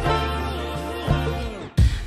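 Background pop music with drums and guitar and no vocals. It drops away briefly near the end, then the beat comes back in with hard hits.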